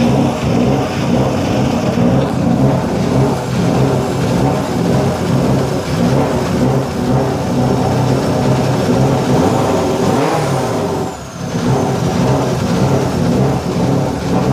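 Subaru Impreza WRC's turbocharged flat-four engine running at low revs while the car is parked, with a brief dip in loudness about eleven seconds in.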